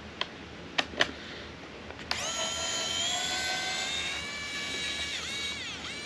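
A few light clicks, then a cordless electric screwdriver's small motor whines for about four seconds, rising slightly in pitch, then dipping and recovering a few times near the end.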